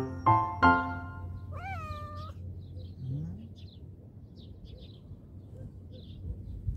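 A calico cat gives one meow of under a second, about two seconds in, rising and then falling in pitch. Piano notes ring out just before it.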